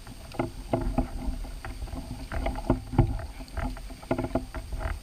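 Irregular knocks and bumps of gear and handling against a small fishing boat's hull, several a second, over a low rumble.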